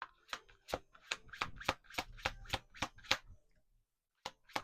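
Tarot cards being shuffled by hand: a quick, even run of card clicks, about three to four a second, that pauses briefly near the end before starting again.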